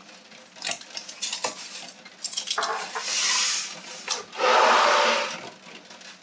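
A large kitchen knife knocking and cutting through a thin sponge cake layer topped with spiced biscuits on baking paper, then, loudest, a scrape of about a second as the plastic cake plate is slid across the wooden worktop.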